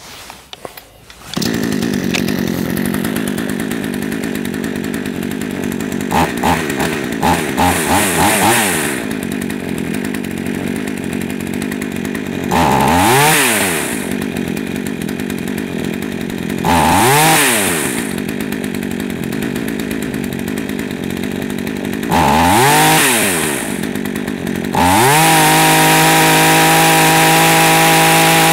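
Fuxtec FX-KS262 62 cc two-stroke chainsaw engine catching about a second in and idling. It stutters through a few quick throttle blips, is revved up and back down three times, and then runs held at full throttle for the last few seconds. Throttle response is poor, the engine close to bogging as the throttle opens, which the owner puts down to an idle speed set too low; top speed is only about 9,600 rpm against the rated 12,500, so the carburettor is out of adjustment.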